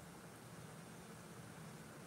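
Near silence: faint steady hiss and low hum of room tone.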